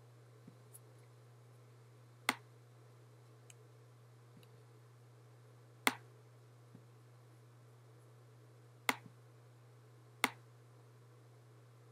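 Computer mouse clicking: four sharp clicks a few seconds apart with a few fainter ticks between, over a low steady hum.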